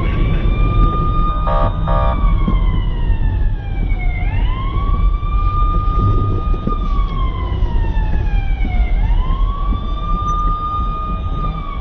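Emergency vehicle siren in a slow wail: the pitch sweeps up quickly, holds, then falls slowly, about every four and a half seconds, over a steady low rumble.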